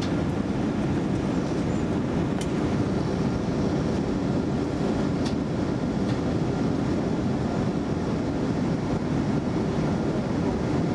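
Cabin noise of an Airbus A320 in flight on approach: a steady low drone of airflow and engines, with two faint ticks.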